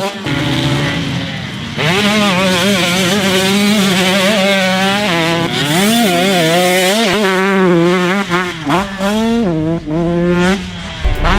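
Dirt bike engine revving up and down again and again, its pitch rising and falling every second or so, choppier near the end.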